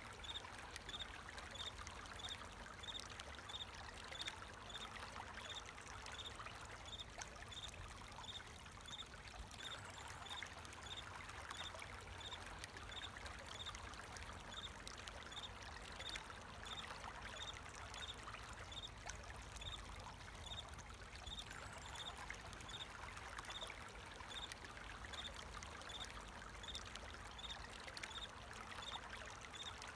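Water flowing and trickling steadily, with a cricket chirping at an even pace, about two chirps a second, on a high note over it.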